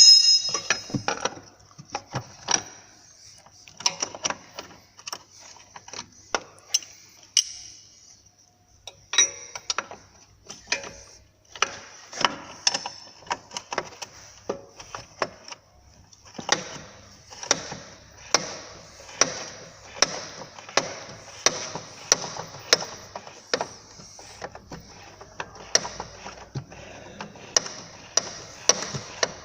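Ratchet wrench clicking in repeated strokes as a tight suspension-arm bolt is worked loose, with scattered metal knocks of the tool against the parts.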